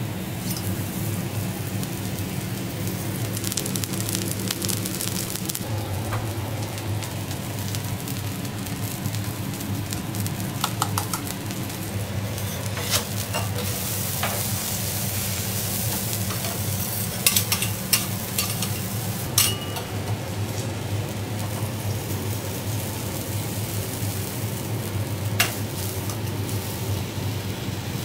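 A scallop searing in oil on a steel teppanyaki griddle, sizzling steadily over a low hum. Steel spatulas click sharply against the plate a few times, mostly in the second half.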